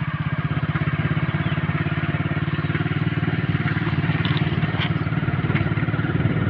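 Motorcycle engine running steadily under way, its firing pulses giving an even throb, with road and wind noise above it.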